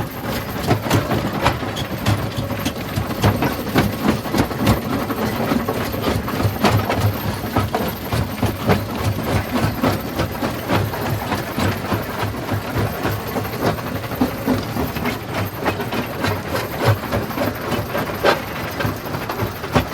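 Rock crushing machine running, its steady engine drone overlaid by a constant irregular clatter of rocks knocking and cracking as they are crushed.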